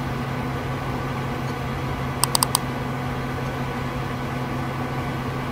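A computer running with a steady low electrical hum and fan hiss. A little over two seconds in, four quick mouse clicks.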